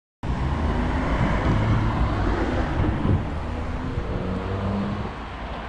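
Moving street footage heard through an action camera's built-in microphone: a steady rumble of wind and road noise with a faint wavering hum. It cuts in abruptly just after the start and eases slightly near the end.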